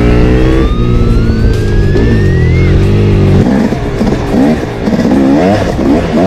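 Motorcycle engine running loud, then revved up and down in repeated quick blips from about three and a half seconds in. A thin rising whine runs over the first few seconds.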